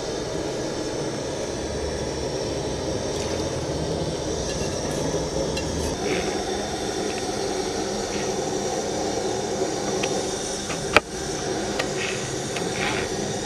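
Spiced gravy with soya chunks bubbling at a boil in a pot over a gas stove, a steady noisy hiss. About eleven seconds in a metal ladle gives one sharp clink against the pot, then a few softer clinks and scrapes as it stirs.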